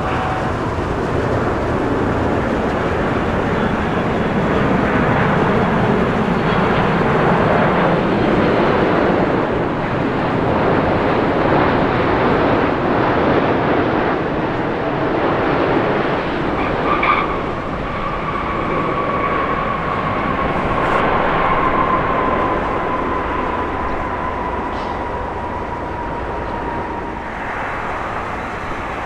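Jet engine noise from a Boeing 747-8's four GEnx turbofans as the aircraft passes, a steady roar that slowly swells and shifts. From about halfway through, a thin engine whine slowly falls in pitch.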